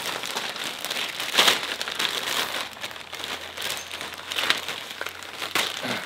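Clear plastic parts bag crinkling and rustling as a clutch cable is pulled out of it. There are sharper crackles about a second and a half in and again near four and a half seconds.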